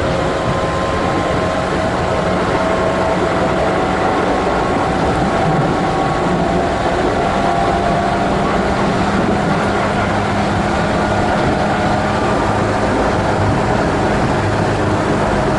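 Keihan 2600-series electric train running, recorded from inside the car: a steady rumble of wheels on rail with a faint, slowly shifting motor whine.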